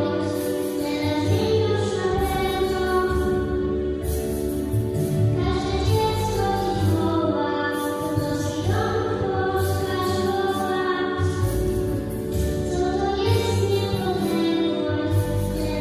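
A song sung by a group of children's voices with a female voice among them, over instrumental accompaniment.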